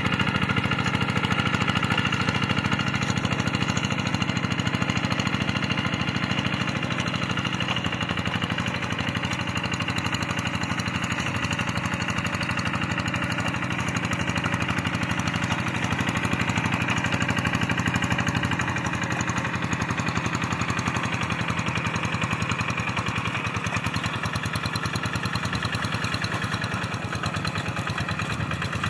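Kubota RD85 single-cylinder diesel of a Quick G1000 two-wheel hand tractor, running steadily under load while it harrows a flooded rice paddy, with a rapid, even beat of firing strokes.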